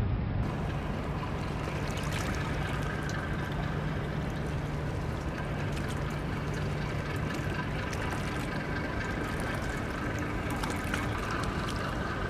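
Harbour ambience: water sloshing and lapping, over a steady low hum of tugboat engines that fades about halfway through.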